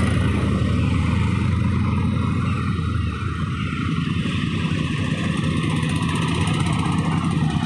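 Engines of a group of large motorcycles, a cruiser and a twin-cylinder café racer among them, running low and steady as the bikes ride slowly past one after another.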